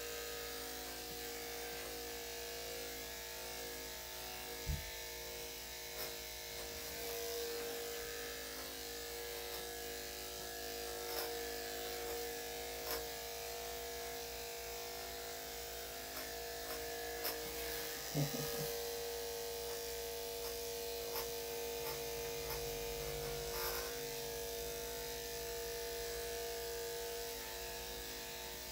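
Electric dog grooming clippers fitted with a #7 blade, running with a steady hum while clipping the dog's coat, with a few light clicks.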